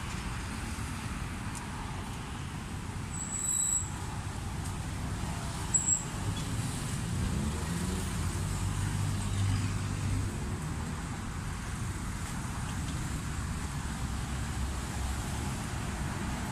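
Roadside traffic noise: a motor vehicle's low engine rumble close by, swelling around eight to ten seconds in. Two brief high-pitched squeaks come a few seconds in.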